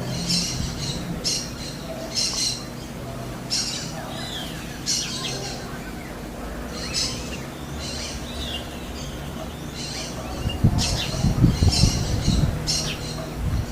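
A bird repeating short, high calls about once a second, with low thumps over the last few seconds.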